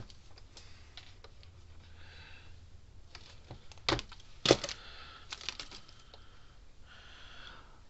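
Metal hand tools being handled and set down on a workbench: scattered light clicks and two sharp clacks about four seconds in, with soft rustling in between.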